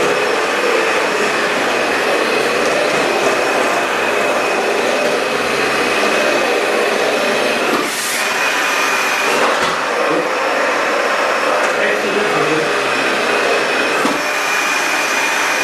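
Dyson DC65 upright vacuum cleaner running, a steady rushing noise with a high whine, as it picks up potting soil from a hard floor. The sound dips briefly about halfway through.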